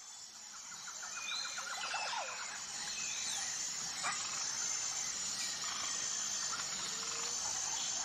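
Outdoor nature ambience: a steady high-pitched insect drone with scattered bird chirps and a short rapid trill early on, fading in over the first second or so.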